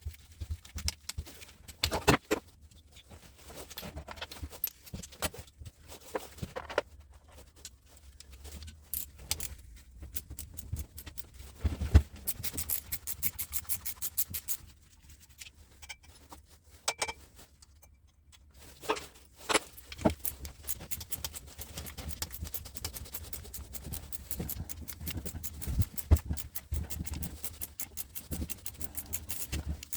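Sped-up dismantling noises: rapid clicks, clinks and knocks of hand tools and metal parts being handled, with fast runs of clicking in places.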